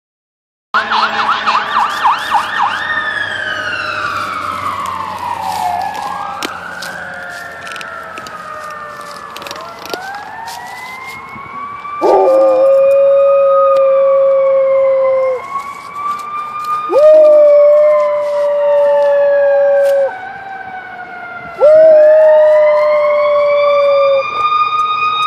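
Fire truck siren that goes from a fast warbling yelp into a slow wail, rising and falling, with a dog howling along to it. Three long howls of a few seconds each start about halfway through and are the loudest sounds.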